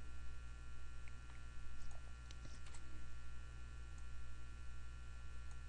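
Steady electrical mains hum with a stack of overtones on the recording, with a few faint clicks in the middle.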